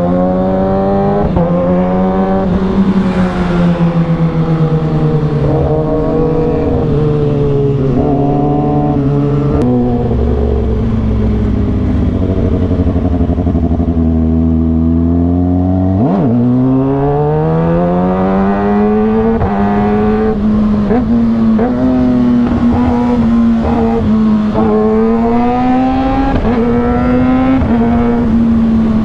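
Motorcycle engine running on the road. Its pitch falls as it slows over the first ten seconds or so and holds low. From about sixteen seconds in it climbs again in a series of rising runs as it accelerates.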